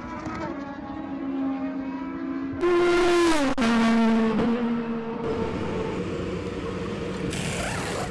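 IndyCar's twin-turbo V6 race engine at speed. It holds a steady note, gets much louder about two and a half seconds in, and its pitch falls sharply a second later as it comes off the throttle, then settles into a steadier, lower note.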